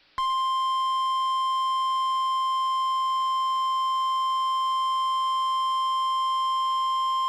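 NOAA Weather Radio's 1050 Hz warning alarm tone: one steady, unbroken tone that starts abruptly a moment in after a short silence and holds. It is the attention signal that heads a severe thunderstorm warning broadcast.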